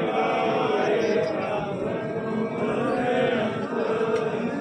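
A crowd of many voices chanting together in unison: a devotional chant of a Sikh congregation.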